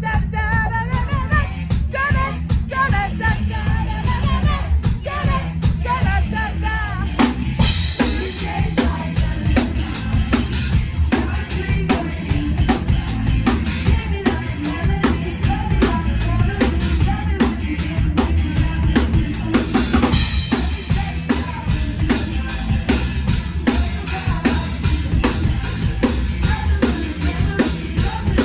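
Live rock band playing loudly, the drum kit driving a steady beat with bass drum and snare. The cymbals grow busier about eight seconds in and turn into a bright wash about twenty seconds in.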